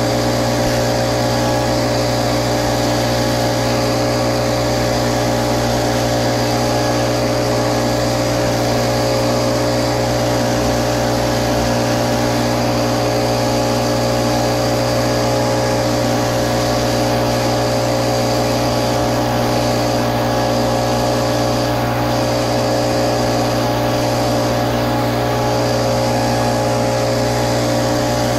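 Little Wonder Optimax walk-behind blower running steadily, its small engine and fan blowing pine needles across the ground.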